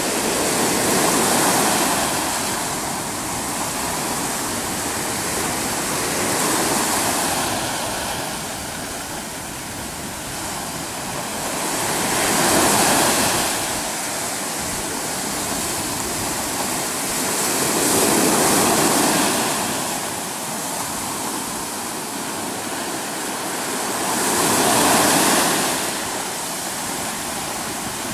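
Sea waves breaking over granite shore rocks and washing back, a steady rush of surf that swells louder five times, about every five to six seconds, as each wave breaks.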